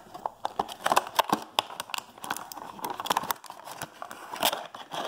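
Clear plastic blister packaging crinkling and crackling as hands work it loose from the cardboard card, a run of irregular clicks and snaps.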